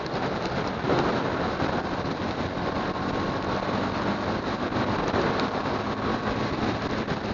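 Steady rushing wind and road noise from a motorcycle riding fast on a wet road, the tyres hissing on the wet asphalt. A faint steady engine note sits under it.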